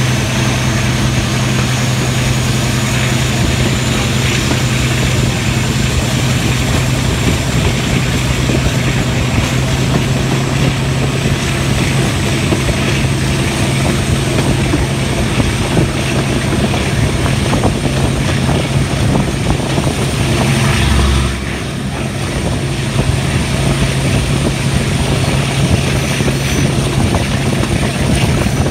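Diesel train running at speed, heard from an open carriage window: a steady low engine drone under a rushing running noise, with a faint high whine slowly rising in pitch. About 21 seconds in the sound briefly drops a little quieter.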